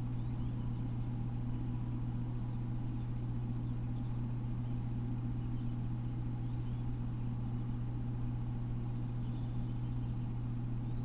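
Steady low electrical hum with constant hiss, the self-noise of an unattended trail camera's recording, with a few faint high chirps here and there; no train is passing.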